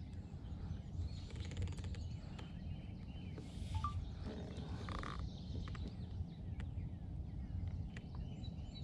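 Quiet outdoor ambience on a lake: a steady low rumble with faint scattered ticks and small water sounds, and a short faint chirp near the middle.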